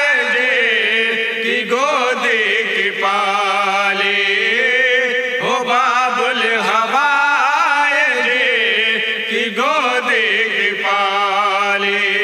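A male voice chanting a wordless melodic passage of a devotional song. It alternates long held notes with wavering, bending ornaments.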